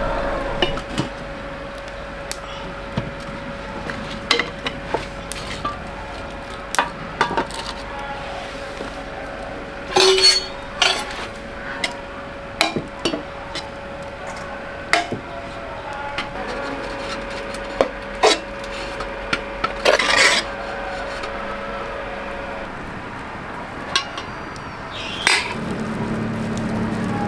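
Scattered, irregular knocks and clinks of kitchenware and a knife being handled, over a faint steady tone that stops a few seconds before the end.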